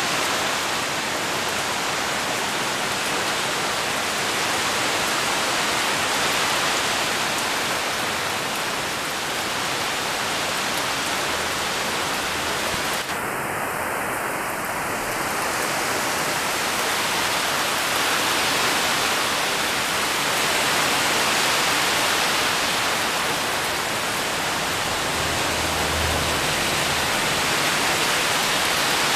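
Heavy rain falling steadily on palm fronds and garden foliage, an even, unbroken hiss.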